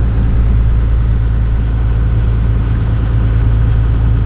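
Tour boat's engine running with a steady, loud low drone.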